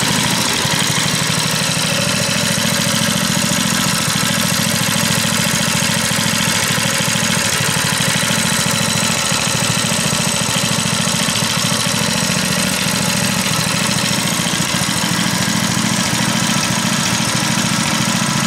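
Small single-cylinder engine of a home-built go-kart idling steadily, its rapid even firing pulses holding at one speed with no revving.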